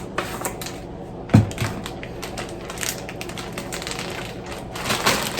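Seasoning being shaken from shaker containers into a bag of flour: quick irregular clicks and taps, with one dull knock a little over a second in.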